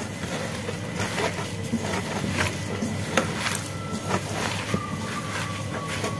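A hand kneading and squeezing grated coconut mixed with spice paste in an enamel bowl: irregular soft rustling and scraping strokes, over a steady low background hum.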